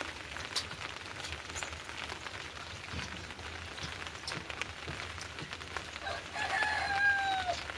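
Heavy rain falling on surfaces, with many separate drops striking close by. About six seconds in, a rooster crows once, the call held and then falling away at the end.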